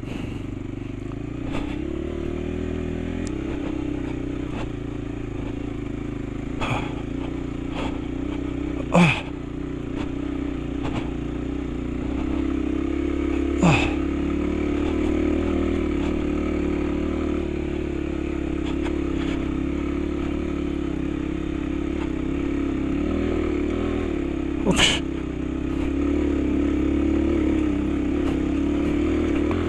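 Motorcycle engine running steadily at low speed, with a few sharp knocks along the way, the loudest near the end.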